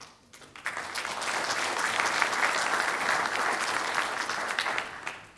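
Audience applauding: a dense spatter of clapping that builds up within the first second, holds steady, and dies away near the end.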